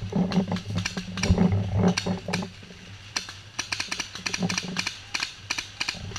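Paintball markers firing: a run of sharp pops, several a second and fastest in the second half, over a low hum in the first half.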